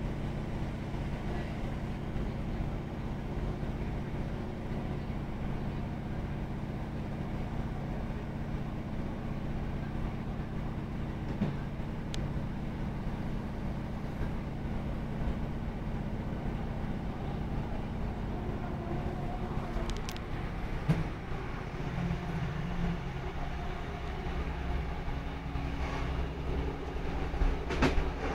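Inside a Class 156 Sprinter diesel multiple unit on the move: the steady drone of its underfloor diesel engine mixed with wheel and track rumble. About three-quarters of the way through, the engine note shifts. Near the end come a few sharp clicks of wheels over rail joints.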